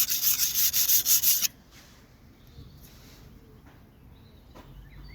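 A blunt knife blade drawn back and forth over a coarse sharpening stone in quick, even strokes, several a second, with a gritty rasping that stops suddenly about a second and a half in. Faint bird chirps come near the end.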